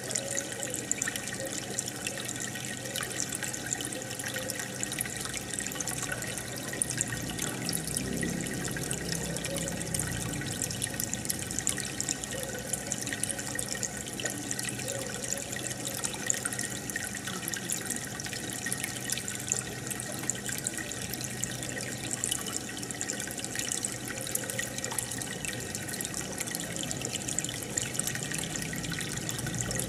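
Aquarium water bubbling and trickling steadily, with a constant fine patter of small splashes.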